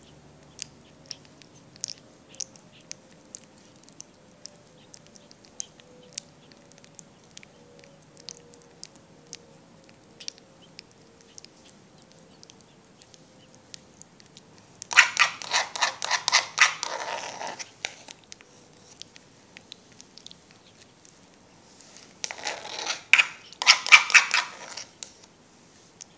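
Baby monkeys eating from a spoon: small wet clicks and smacks scattered throughout, with two louder bouts of crackling noise a few seconds long, one a little past the middle and one near the end.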